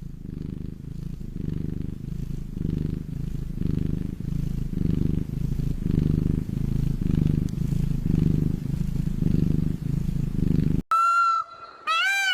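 Domestic cat purring, a steady low rumble that swells and fades with each breath, about every 0.7 s. Near the end it cuts off abruptly and another animal's high call begins.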